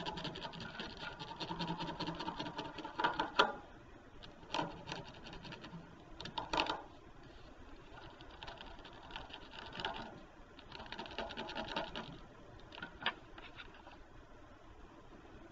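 Quick back-and-forth scratching of a colored pencil stick rubbed across paper laid over a ridged plastic texture plate, making a texture rubbing. The strokes come in fast spurts, busiest in the first few seconds and sparser after.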